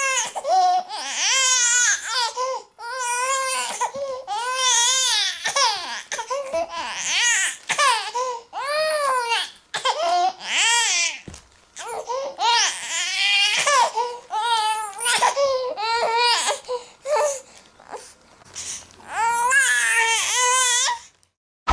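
A baby crying: a run of high-pitched wails, each about a second long and rising and falling in pitch, broken by short gasps for breath, with a brief pause near the end before one more long wail.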